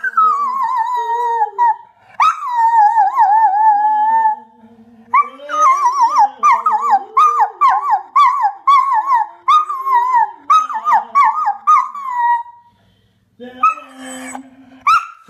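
A dog howling: two long, wavering howls, then a run of short yodelling howls that rise and fall about twice a second. Near the end comes a brief pause, a short noisy sound, and one more howl.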